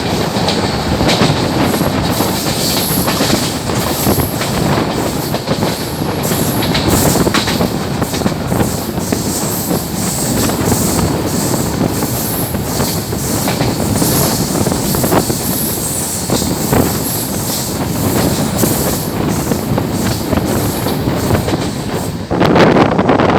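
Passenger coaches of an express train passing at about 110 km/h, the wheels clattering over the rail joints with faint high squeals. Near the end the sound changes abruptly to a louder rush of wind.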